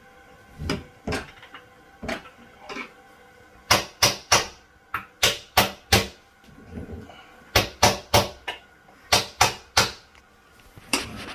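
A run of about twenty sharp knocks and clicks of hard objects, in quick irregular clusters.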